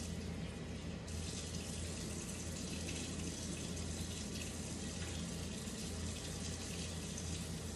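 Kitchen tap running steadily into the sink, an even rush of water.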